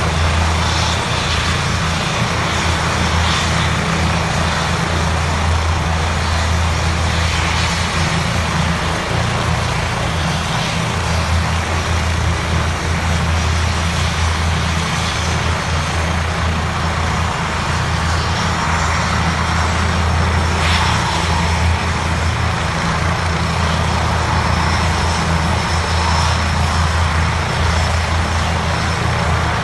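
Air ambulance helicopter running steadily on the ground: a low drone with a faint high turbine whine on top.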